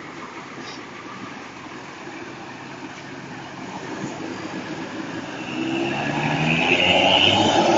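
Bus engine running, growing steadily louder over the second half as the bus draws close.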